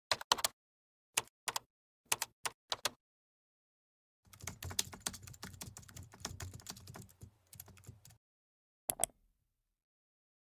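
Computer keyboard typing: a few short groups of separate keystroke clicks, then about four seconds of fast continuous typing, then a final double click.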